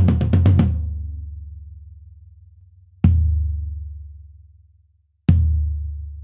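1970s Premier 16-inch birch floor tom with a coated Emperor head, close-miked: a fast roll ends within the first second, then come two single hits about two seconds apart. Each is a low boom that rings out and is cut off short by a noise gate.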